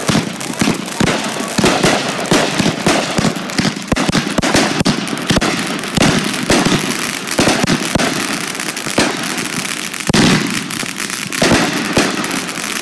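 Aerial fireworks bursting overhead in quick succession: a dense run of bangs and crackling pops, with louder reports about six seconds in and again near the end.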